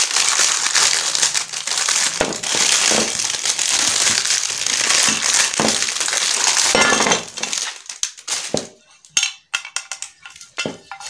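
Clear plastic wrap crinkling and rustling loudly as it is pulled off a boxed pan, for about seven seconds; after that a few light clicks and knocks as the pan and its contents are handled.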